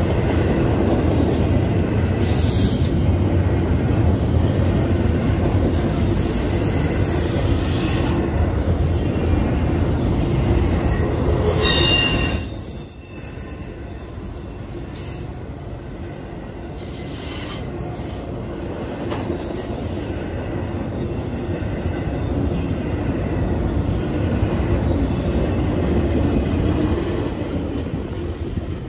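Freight train rolling past on the rails: a steady heavy rumble with metallic wheel squeal, a high squealing tone standing out about twelve seconds in. The rumble then drops abruptly and a quieter rumble slowly builds again.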